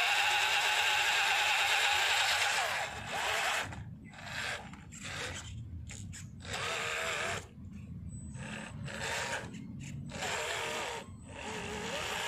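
Small electric motor and gearbox of an MN99S 1:12 scale RC crawler whining as it climbs a loose dirt slope. A loud steady whine for the first three seconds or so, then the throttle goes on and off in several short bursts, the pitch wavering with motor speed.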